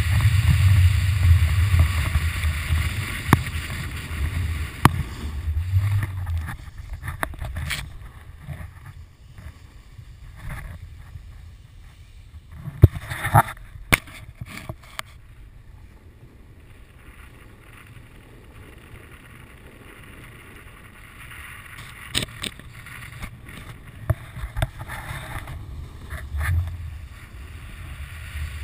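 Wind buffeting an action camera's microphone, together with the hiss of a snowboard sliding over groomed snow. The wind rumble is heavy for the first several seconds and then drops. A few sharp knocks come about halfway through.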